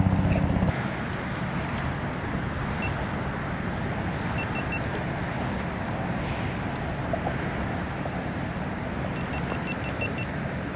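Steady rushing noise of wind and choppy water. A low engine drone fades out about a second in, and a few faint, short, high peeps come later.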